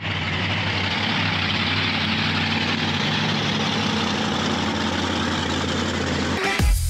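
Monster truck engine running steadily at low speed, a deep even drone with a hiss of exhaust and air over it. Music with a drum beat cuts in near the end.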